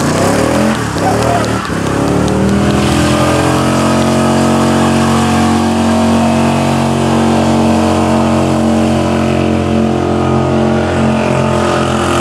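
V8 muscle car engine revving up over the first two seconds, then held at steady high revs with a haze of tire noise, as in a burnout.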